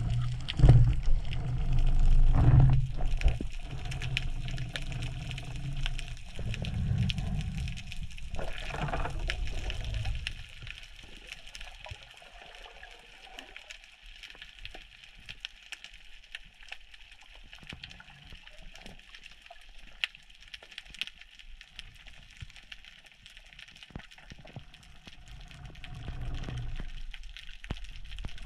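Underwater sound picked up by a submerged action camera: a low, muffled rumble of water movement for about the first ten seconds, then much quieter, with a faint hiss and scattered short clicks.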